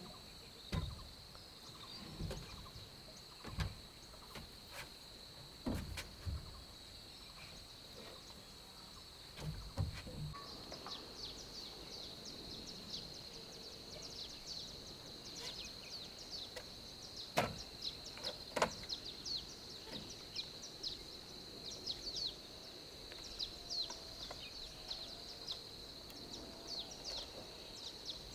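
Outdoor ambience: a steady high-pitched insect drone, with scattered knocks and thuds, two of them louder past the middle. From about a third of the way in, birds chirp in quick short notes.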